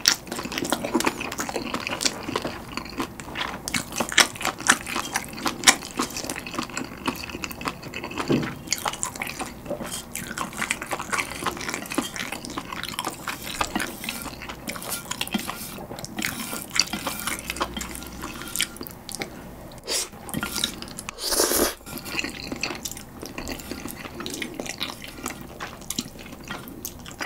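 Close-miked eating sounds of someone chewing soft stir-fried instant noodles: many wet mouth clicks and lip smacks. One short, louder rush of sound comes about three-quarters of the way through.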